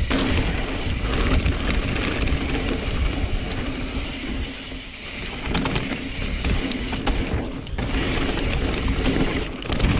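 2020 Norco Sight mountain bike rolling down a dirt trail: tyres on dirt with the freehub ratcheting and the chain rattling, under heavy wind rumble on the helmet or bike camera's microphone. The noise drops away briefly a couple of times.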